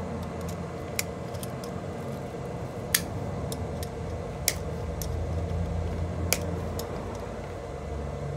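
Pliers clicking on the cotter pin of a scooter's hydraulic brake caliper as it is worked out: a handful of sharp small metal clicks a second or two apart, over a steady low hum.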